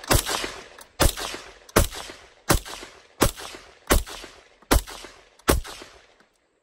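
AR-15 pistol with a 10.5-inch 5.56 NATO barrel firing eight shots at a steady pace, about one every three-quarters of a second, each trailing off in a decaying echo. The last shot empties the ten-round magazine.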